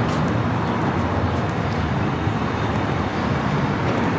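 Steady road traffic noise, a continuous even rumble with no distinct single vehicle standing out.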